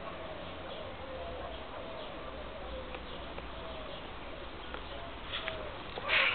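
Guinea pigs in a group making soft, repeated chuttering calls while they feed, each a short gliding tone. A brief rustling crunch comes near the end.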